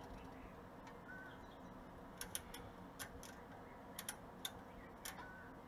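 A steel pry tool working against an engine flexplate's ring-gear teeth from under a van, giving a scattered series of sharp metallic clicks from about two seconds in.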